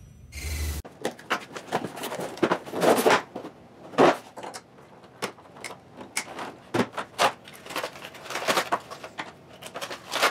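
A brief whoosh ends in the first second. Then comes unboxing handling: a plastic toy blaster is freed from its cardboard box tray, with irregular rustling, clicks and knocks of cardboard, plastic and wire twist ties. The loudest knocks come about three and four seconds in.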